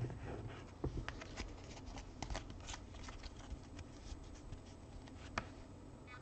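A stack of trading cards handled and thumbed through by hand: faint rustling with light clicks of card edges, and one sharper click about five seconds in.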